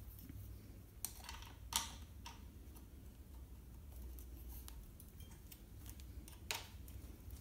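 Faint metal clicks of a hex key turning the clamp bolts of a two-bolt seatpost as they are loosened to free the saddle rails: a few scattered ticks, about a second in, near two seconds and once more near the end, over a faint low hum.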